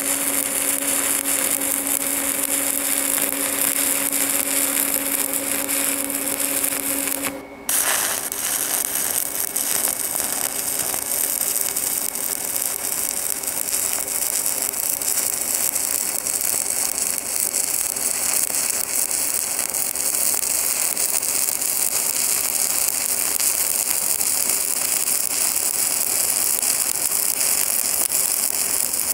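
Stick-welding arc of a 1/8-inch 7018 electrode at 100 amps, crackling steadily as cap-pass beads are run on carbon steel pipe. The crackle breaks off for a moment about seven seconds in, then carries on.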